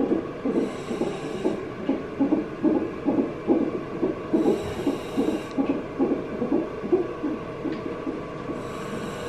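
Fetal heart monitor's Doppler speaker pulsing with the unborn baby's heartbeat, about two and a half beats a second, fading out near the end. Three times a short hiss from the gas-and-air (Entonox) mouthpiece as the mother breathes in.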